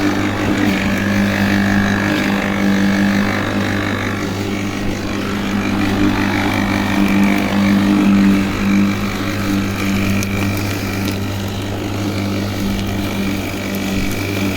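Worx 40 cm cordless battery lawnmower running in turbo mode while cutting grass: a steady motor hum with a higher whine, its loudness wavering slightly as the blade meets the grass.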